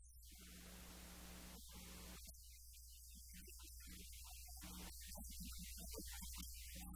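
Near silence apart from a steady low electrical mains hum with faint hiss.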